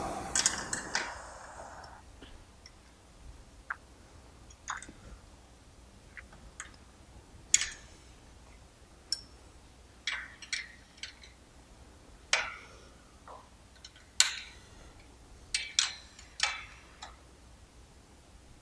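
Scattered light metallic clicks and ticks of hand wrenches working the cap screws on a plasma-table gantry carriage as they are re-tightened, coming irregularly about once or twice a second.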